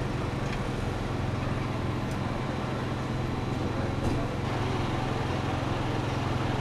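A vehicle engine running steadily, a low even rumble.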